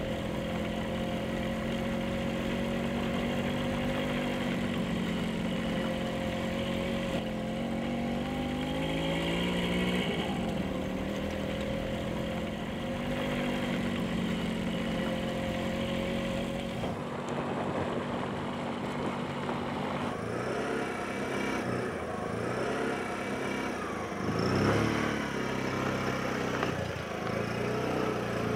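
Small motorcycle engine running while being ridden on a dirt road. Its pitch climbs once about a third of the way in, then rises and falls repeatedly in the second half with changes of throttle.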